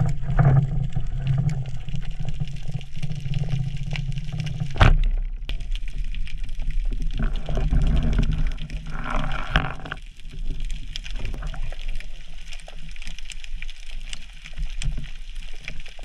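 Underwater ambience through a diver's camera: a steady low rumble with faint crackling clicks, and one sharp crack about five seconds in, a speargun firing.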